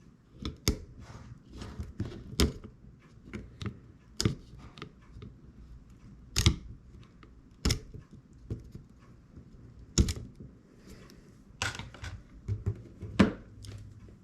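Irregular sharp clicks and taps of small tools and phone parts being handled on a work surface during a phone repair, about eight knocks spread over the stretch.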